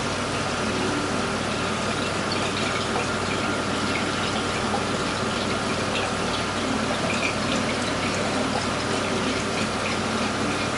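Aquarium water circulation running steadily: a continuous watery rush over a low pump hum, with light scattered ticks.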